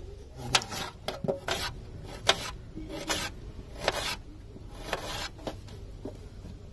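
Kitchen knife cutting onions on a steel tray: irregular crisp slicing strokes and scrapes, roughly one or two a second.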